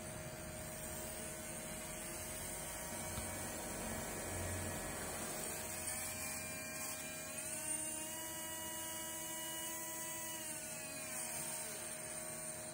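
Small 365-size brushed DC motor (3–12 V) running unloaded on an adjustable bench power supply with a steady whine. Its pitch rises about six seconds in as the voltage is turned up, holds, then drops back near eleven seconds as the voltage is turned down.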